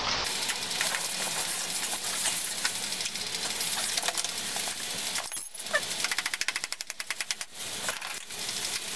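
Metallic rattling and scraping as a motorcycle's rear wheel spindle is worked through the hub, then a quick run of rapid even clicks about two-thirds of the way through.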